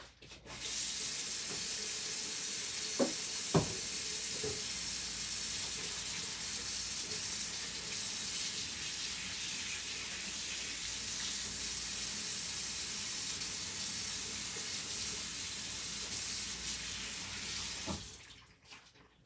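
Kitchen tap running into the sink as a steady hiss, turned on about half a second in and off near the end, with two short knocks a few seconds in.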